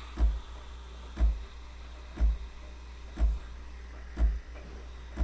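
Semi-automatic espresso machine humming low after the steam wand shuts off, with a short low thump about once a second, like its pump pulsing.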